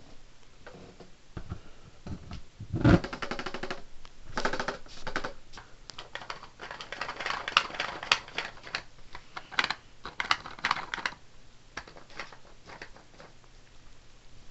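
Hard 3D-printed plastic siren parts being handled and fitted together: a run of clicks, rattles and light knocks, with one louder knock about three seconds in. The handling thins out to a few faint clicks after about eleven seconds.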